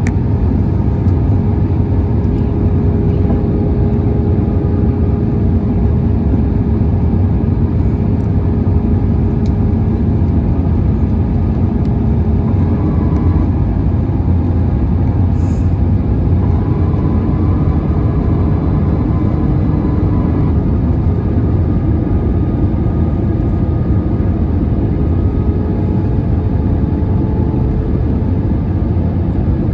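Airbus A320 cabin noise: a loud, steady low drone of engines and airflow, with several steady engine tones that change pitch about halfway through.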